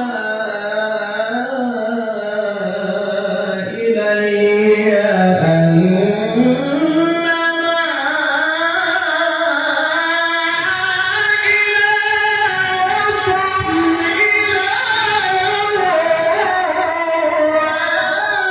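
A man's voice reciting the Quran in melodic tilawah style, holding long ornamented notes whose pitch glides down and back up and wavers through the melody.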